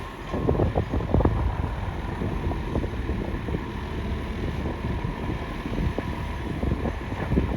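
Homemade radio-controlled hydraulic excavator running, its hydraulic pump giving a faint steady whine under a low rumble and irregular crackling, with wind buffeting the microphone.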